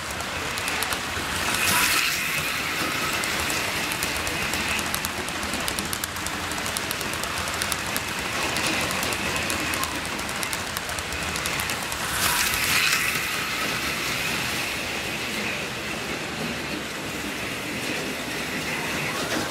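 HO scale model freight cars rolling past on the track: a steady rolling noise with fine, rapid clicking of the wheels over the rail joints and a thin steady high whine. There are two brief louder swells, about two seconds in and again about twelve seconds in.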